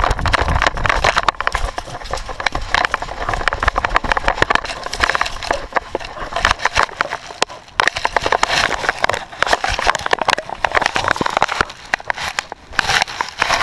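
Wind and handling noise from a GoPro strapped to a running dog: rapid, irregular knocking and rustling as the camera housing jolts and rubs against the dog's fur and brushes through grass.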